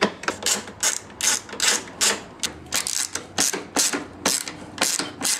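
Hand ratchet on a long extension clicking in short, even swings, about two to three a second, as it backs out a T30 Torx screw.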